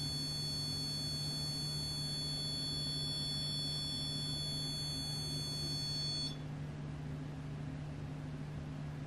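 REM pod ghost-hunting sensor sounding its steady, high-pitched electronic alarm tone, which cuts off suddenly about six seconds in. A low steady hum continues underneath.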